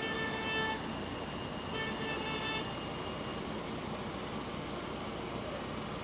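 Bus running with an exhaust leak amid traffic noise, with two short tooting tones in the first three seconds.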